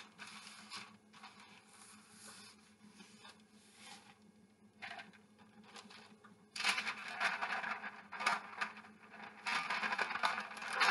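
Parchment paper rustling and crinkling as hands handle and smooth it over rolled-out dough on a countertop, faint at first and much louder from about two-thirds of the way in.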